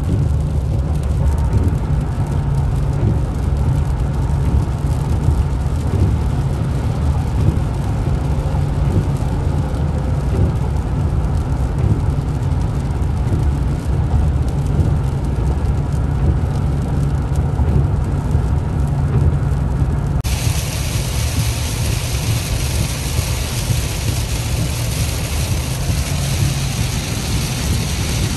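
Steady low rumble of road and tyre noise inside a car driving on a wet highway. About two-thirds of the way through it changes suddenly to a brighter, steady hiss of rain and wet-road spray against the car.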